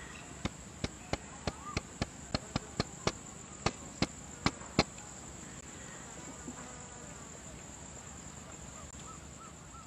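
A steady high-pitched insect chorus, with about fourteen sharp clicks in the first five seconds, irregularly spaced, after which only the insects continue.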